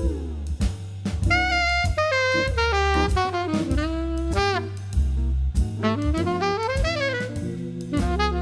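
Background jazz music: a saxophone-like lead melody over a walking bass line and a drum kit.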